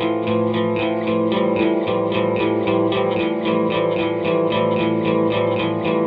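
Background music: guitar picking a quick, evenly repeating pattern of notes over held chords, with echo.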